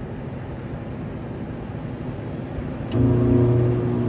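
A single-phase exhaust fan motor is switched on about three seconds in and hums loudly and steadily without turning over, the stalled buzz of a motor that cannot start because its start capacitor has failed. Before that there is a steady background rumble.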